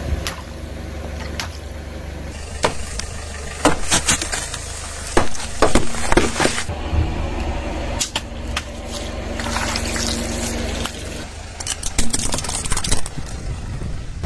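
A car tyre rolling slowly over water-filled balloons, bursting them with sharp pops and splashes of water over the car's steady low rumble. Near the end there is a quick run of cracks and snaps as a plastic toy is crushed under the wheel.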